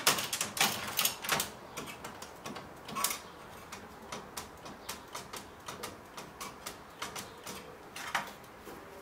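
Irregular clicks and light knocks of hands handling parts inside an opened flat-screen TV: the sheet-metal frame, plugs and ribbon cables. The clicks come thickest in the first second or so, then scattered ticks follow.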